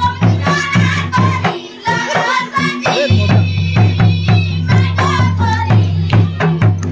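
Jhumur folk song: a singing voice over a steady, deep drum beat with other instruments. About a second and a half in, the drum beat drops out, and it comes back about three seconds in.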